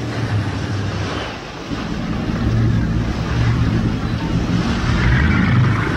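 Sportfishing boat's inboard engines running with a steady low drone as the boat comes in slowly across the water, over a wash of water and wind noise; the drone grows louder about two seconds in.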